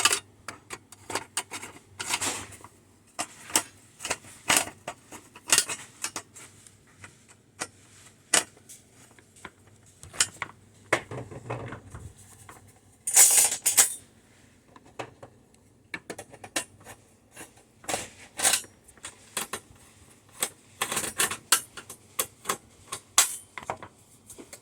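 Thin metal RF shielding on an all-in-one computer being worked loose: irregular sharp metallic clicks, clinks and scrapes, with a louder rattle of sheet metal about 13 seconds in.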